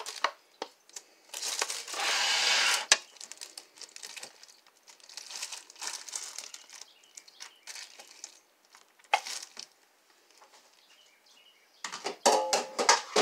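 Plastic slow-cooker liner crinkling, with a wooden spoon knocking and scraping as vegetables are stirred in. A brief rushing noise about a second and a half in is the loudest part; small clicks and rustles follow.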